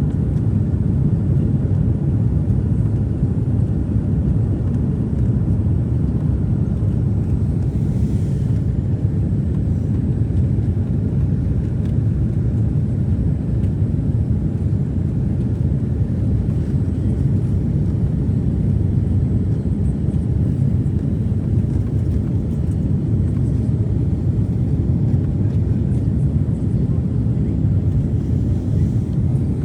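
Steady low drone of an airliner cabin in flight, heard from a window seat: engine and airflow noise that holds even throughout.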